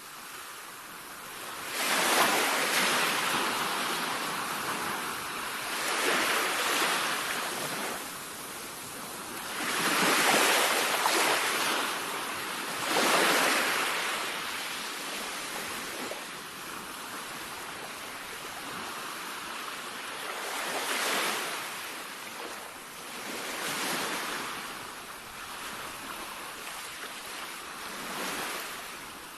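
Sea waves washing in as a broad hiss that swells and ebbs every few seconds. The strongest surges come in the first half.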